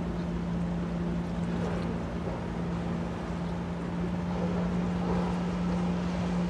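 A boat engine running with a steady low hum under an even wash of water and wind noise.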